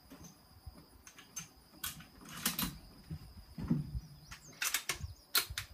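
Several sharp metallic clicks and knocks, a few in quick pairs, from a bolt-action rifle being handled on a bench rest; no shot is fired.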